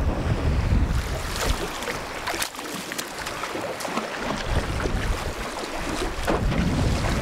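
Wind buffeting the microphone over choppy water, easing for a couple of seconds midway, with several sharp splashes of water against the boat and at the surface.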